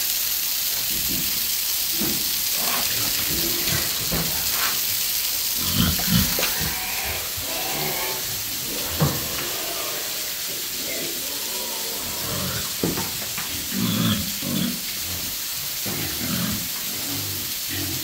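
Domestic pigs grunting now and then over a steady hiss, with one sharp knock about nine seconds in.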